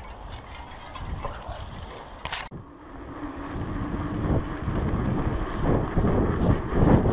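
Wind buffeting the microphone over the rumble of mountain-bike tyres rolling along a path. There is a sharp click about two and a half seconds in, and the wind rush and rumble then grow louder as the bike picks up speed.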